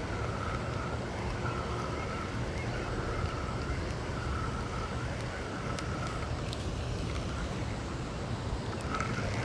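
Wind rumbling on the microphone, with a faint short call repeating about once a second and a few light clicks.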